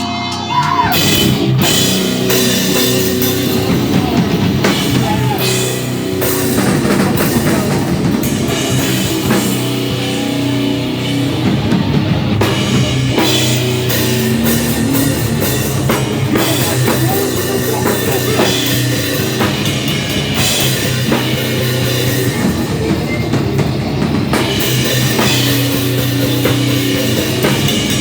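Live heavy rock band playing loud, with a drum kit and guitars.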